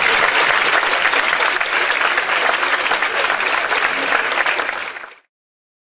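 Audience applauding, a dense, steady clapping that cuts off suddenly about five seconds in.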